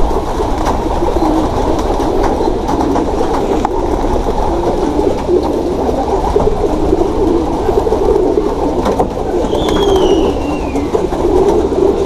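A large flock of white doves cooing continuously, many calls overlapping into a dense, wavering chorus. A short high falling chirp cuts across it about ten seconds in.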